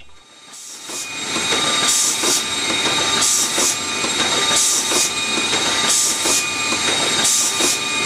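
Mikron Multistar CX-24 rotary transfer machine running while machining connector sockets: a steady mechanical whir with faint whining tones. A short hiss recurs about every second and a half. The sound fades in over the first second.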